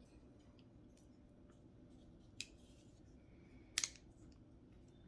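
Parts of a folding knife being handled and fitted together: two short sharp clicks, a small one about two and a half seconds in and a louder double click near four seconds, over faint room tone.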